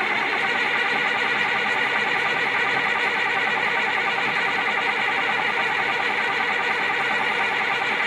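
Caterpillar 950H wheel loader's diesel engine turning over steadily and loudly during a start attempt just after the fuel system was primed, on a machine with an unstable, misfiring engine.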